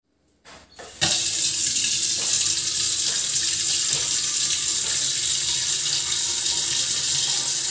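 Kitchen tap turned on about a second in, then water running steadily from the tap into a stainless steel pot standing in a steel sink.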